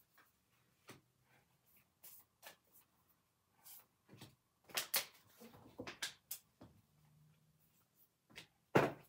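Oracle cards being drawn from a deck and laid down on a cloth-covered table: scattered light taps and slaps of card stock, with a few louder ones about five seconds in and near the end.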